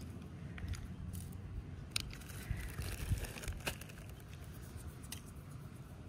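Dry fallen nuts and leaf litter crunching and clicking underfoot and in the hands: a handful of sharp clicks and crunches, the strongest around the middle, over a low rumble.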